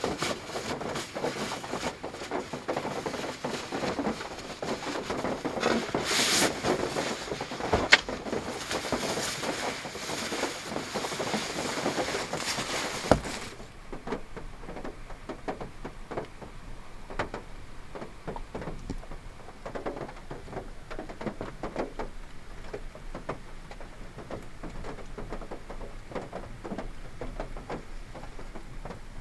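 Synthetic-fabric Naturehike sleeping bag rustling and crinkling as it is pulled from its stuff sack and shaken out, with a couple of sharp clicks. About 13 seconds in the rustling stops abruptly, leaving a quieter background with faint soft ticks.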